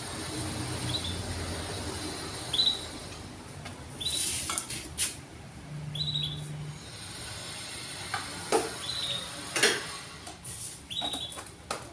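A bird repeating a short high chirp about every second or so, with several sharp clicks and knocks in among the calls.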